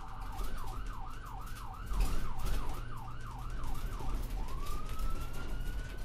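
A siren sounding in a fast up-and-down yelp, about three sweeps a second, that changes about four seconds in to one slow rising wail.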